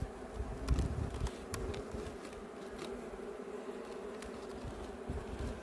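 Honeybees buzzing steadily over an open hive. A few sharp clicks of a metal hive tool against the wooden frames come through, mostly in the first couple of seconds and once more near four seconds in.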